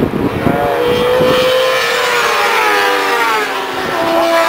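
Several racing motorcycle engines at racing speed, heard at a distance, their pitch rising and falling as the riders change gear and the bikes draw closer.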